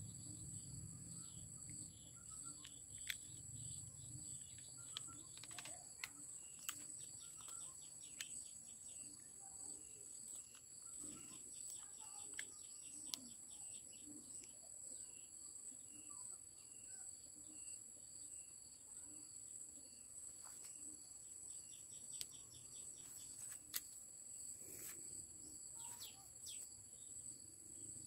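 Faint outdoor ambience: a steady high-pitched insect drone, with scattered small bird chirps and a few light clicks.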